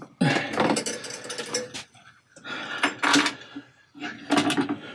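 Metal clinking and clattering on a workbench as a handheld digital scale, with its hook and bead chain, is unhooked from a silverware bracelet and set down. The clatter comes in three short bunches.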